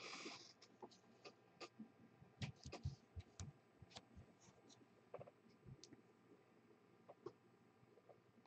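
Faint, scattered clicks and taps of trading cards being handled, shuffled and set down on a tabletop, with a short brushing sound at the very start and the taps busiest about two and a half to three seconds in.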